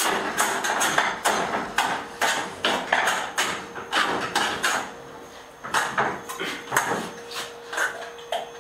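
Irregular sharp metal knocks and clatters at a gas stove, several a second, growing sparser after about five seconds. A faint steady hum comes in about halfway.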